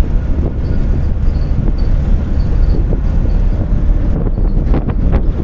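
Cab noise of an Ashok Leyland Bada Dost diesel light truck under way: a steady low engine and road rumble with wind buffeting the microphone. A few short knocks about four to five seconds in.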